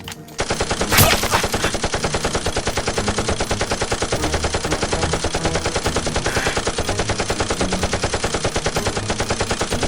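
Rapid automatic gunfire in a steady, unbroken stream of shots, starting about half a second in, with one louder bang about a second in.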